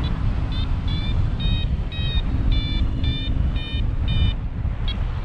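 A paragliding variometer beeps its climb tone, short high-pitched beeps about twice a second, over heavy wind noise on the microphone.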